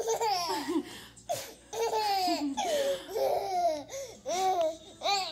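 Baby laughing in a run of short, high-pitched bursts.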